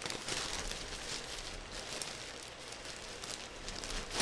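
Water running from a kitchen tap and splashing unevenly in the sink, with a few light clicks.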